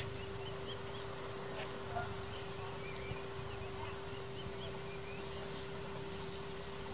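Outdoor woodland ambience: small birds chirping in short repeated calls over a steady low hum, with a few faint clicks.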